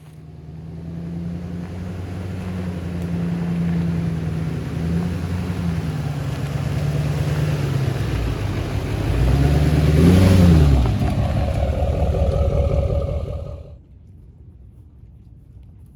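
Husqvarna T540i XP battery chainsaw cutting through a log. The motor runs steadily, sags under load, then speeds up sharply as the chain breaks through. After that it runs higher for a few seconds and stops abruptly when the trigger is released.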